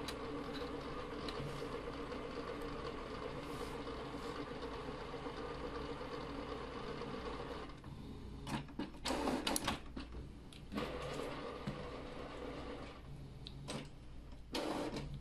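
Canon PIXMA TS5140 inkjet printer's internal motors running while it processes, a steady mechanical whir with a hum that stops suddenly almost eight seconds in. A few short, uneven mechanical bursts follow.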